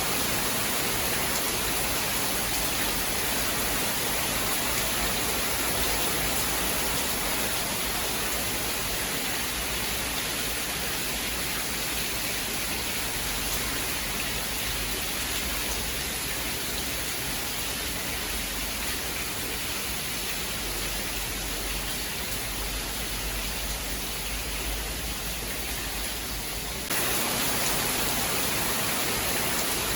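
Steady rain falling as an even hiss, with no separate claps or drops standing out; it gets slightly louder and brighter about 27 seconds in.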